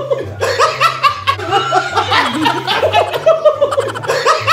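Several people laughing and giggling, over background music with a bass line that steps from note to note.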